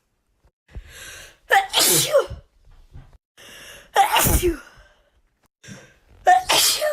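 A young woman sneezing three times, about two and a half seconds apart, each sneeze preceded by a short, breathy intake. These are allergy sneezes.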